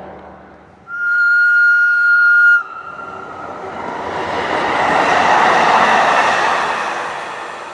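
A single steady horn note sounds for about a second and a half near the start. Then a yellow-and-red Karlsruhe Stadtbahn tram-train approaches and passes on electrified track, its wheel and running noise swelling to a peak and fading away.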